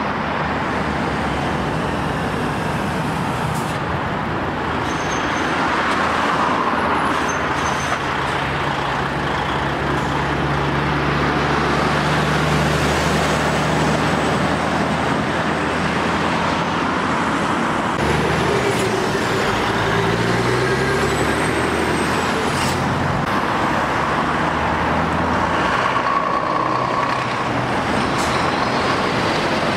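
Diesel lorries passing one after another, with engine and tyre noise over steady road traffic. In the second half the engine note changes pitch in steps, and a faint high whistle comes and goes.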